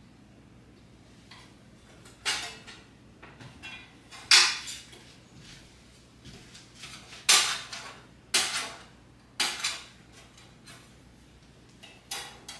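Barn-door flaps being fitted and adjusted on an LED video panel light: half a dozen sharp clacks with short rattles, the loudest about four and seven seconds in.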